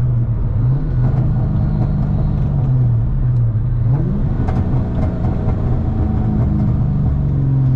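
2003 Mustang SVT Cobra's supercharged 4.6-litre V8 running while driving, its pitch climbing once about four seconds in as the car accelerates.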